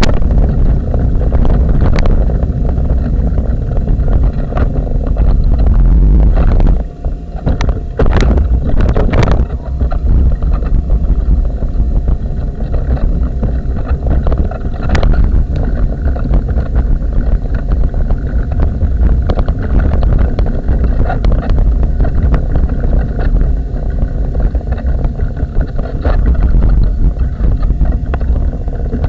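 Loud, steady low rumble and rattle picked up by a camera mounted on a moving wheelchair, with scattered sharp knocks as the chair jolts, a cluster of them about eight seconds in.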